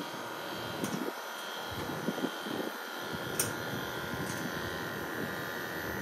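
Split air conditioner's outdoor-unit compressor running with a steady buzzing hum during a refrigerant pump-down. The high-pressure port is closed and suction pressure is falling as the refrigerant is drawn into the outdoor unit.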